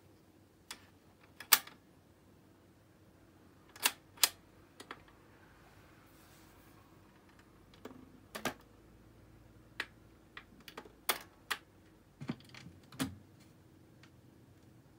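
A BSR record changer (thought to be a C142) in a Weltron 2007 running its automatic change cycle: the start control clicks, then the changer mechanism makes a string of sharp clicks and clunks over a faint motor hum. Near the end come a couple of duller thuds as a record drops from the spindle onto the platter and the tonearm moves in.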